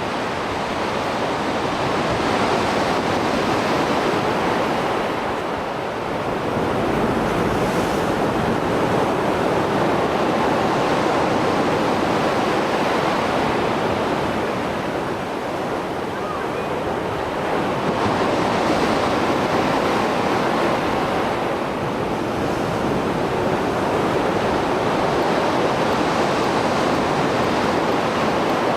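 Mediterranean Sea surf after a storm: waves breaking and washing ashore in a continuous rush. The rush swells and eases, with slight lulls about six and sixteen seconds in.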